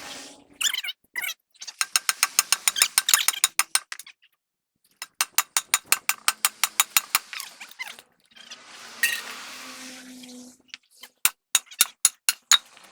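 Rapid mechanical clicking, about eight clicks a second, in three runs of two to three seconds each. A stretch of hiss with a faint low hum comes between the second and third runs.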